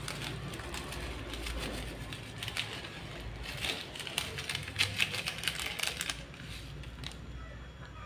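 Chicken simmering in broth in an aluminium wok over a stove burner, with a low steady rumble under it. About halfway through comes a quick run of small ticks and crackles as seasoning granules are shaken in from a packet.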